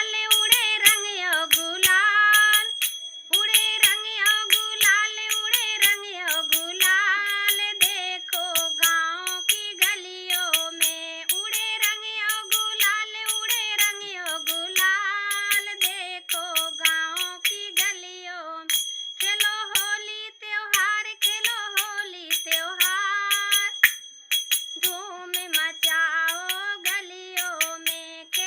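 A woman singing a Holi song unaccompanied by other voices, in long, gliding melodic phrases with brief breaths between them, over a steady clicking beat.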